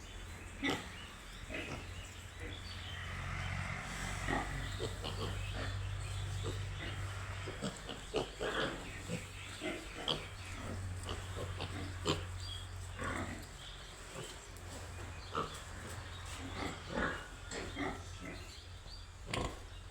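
Piglet grunting in many short, irregular calls, mixed with scattered clicks and knocks, over a steady low hum.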